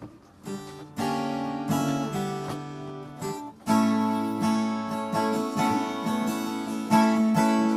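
Acoustic guitar strumming chords as a jam starts: a few notes about half a second in, then strummed chords that get louder about halfway through.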